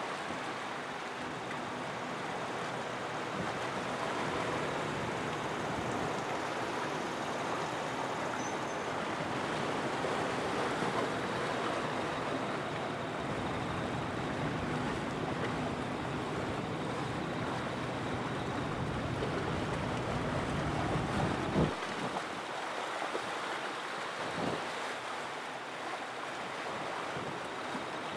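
Steady outdoor wash of wind and water at a shoreline, with a faint steady hum underneath. A low rumble of wind on the microphone builds midway and stops with a short bump about three-quarters of the way through.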